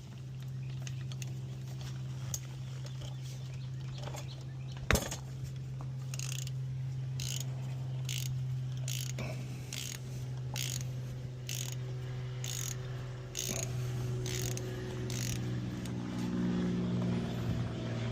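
Ratchet wrench clicking in short bursts about once a second as it is swung back and forth to loosen the oil drain plug, after a single sharp click, over a steady low hum.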